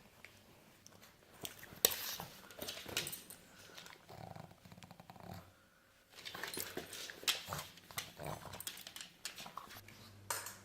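A pug making a run of short, irregular noises, with a brief lull about six seconds in.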